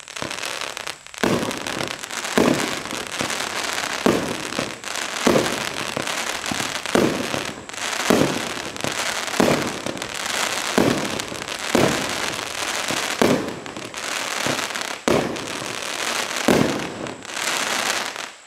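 A 200-gram consumer firework cake firing its 13 shots of flaming balls with reports: about a dozen sharp bangs, one every second or so, over continuous dense crackling from the bursting stars.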